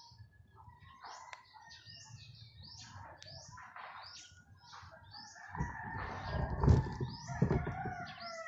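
Small birds chirping over and over. About five and a half seconds in, a louder rooster crow comes in with a rush of low noise, loudest near seven seconds, and trails off with a falling tail.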